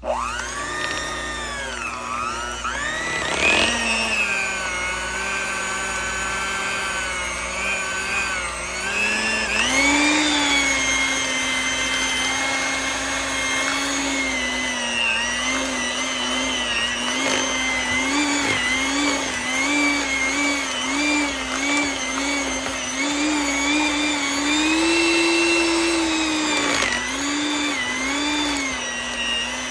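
Electric hand mixer beating softened cream cheese and vanilla in a bowl. The motor whine switches on at the start, rises in pitch about ten seconds in, then wavers with repeated quick dips in pitch.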